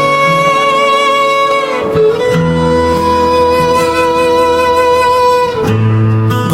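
Instrumental music: long held melody notes over a lower accompaniment, the melody changing pitch about two seconds in and again near the end.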